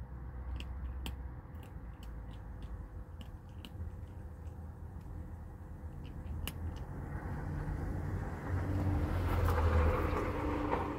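Tabby kitten purring while being stroked: a low rumble that swells and eases in stretches, with scattered faint clicks. Over the last few seconds a louder rustle of handling noise rises over it.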